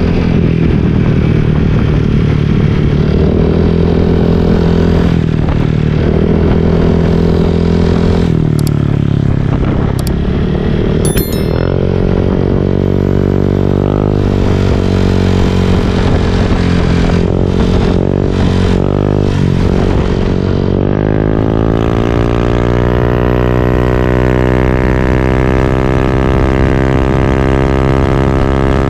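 Honda Click 125 scooter's single-cylinder engine running through a rebuilt Apido V4 aftermarket exhaust with a 2-inch pipe and a straight-through screen. The throttle is blipped lightly at first, then the revs climb about two-thirds of the way in and are held higher.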